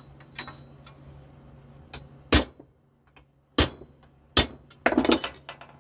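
Hammer striking a steel punch to peen over the rivets of a replacement nose-sprocket tip on a chainsaw bar: sharp metal-on-metal blows, three spaced about a second apart and then a quick cluster of strikes with a brief ring, after a couple of small clicks.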